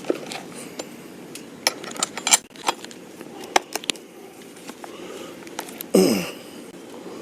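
Light metallic clicks and clinks of a hand wrench working on a chainsaw, a scatter of sharp ticks between about one and a half and four seconds in. Near the end, one louder short sound that falls in pitch.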